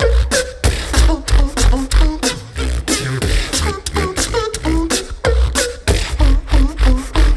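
Beatboxing through a stage microphone: fast percussive kicks, snares and clicks over a deep bass line, with short sung or gliding vocal tones woven between the hits.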